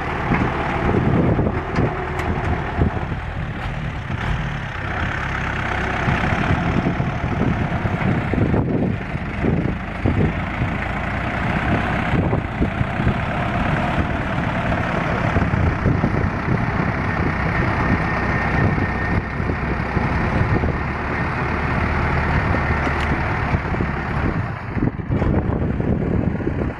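A heavy farm vehicle's engine running hard and steadily, a continuous rumble and clatter, as it hauls a load of rice on a muddy road.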